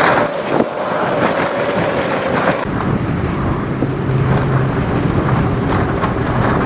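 Strong squall wind buffeting the microphone: a loud, steady rushing roar with gusts. It turns heavier and lower, more of a rumble, about two and a half seconds in.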